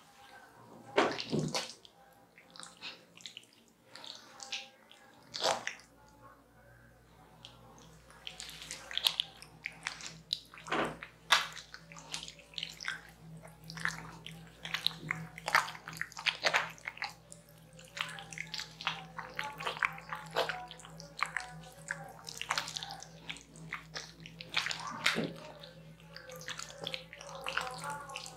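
Wet squishing and squelching of hands and a watermelon rind kneading mashed fruit pulp over slick bare skin in a massage, in many short, irregular strokes.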